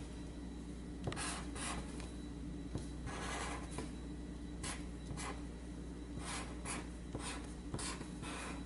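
Pen tip scratching across paper in a series of short, separate strokes as a word is written by hand, with one longer stroke about three seconds in.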